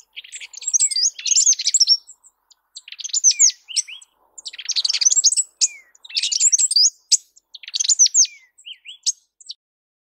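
Southern double-collared sunbird singing: a high-pitched jumble of tinkling notes, delivered in repeated phrases about a second long with short gaps between them.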